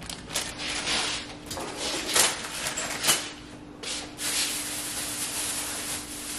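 Thin plastic grocery bags and packaging rustling and crinkling as items are handled and taken out of them: scattered crinkles at first, then a denser continuous rustle from about four seconds in.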